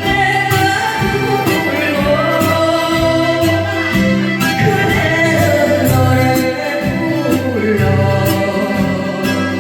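A woman singing an old Korean popular song over a backing track with a steady bass beat.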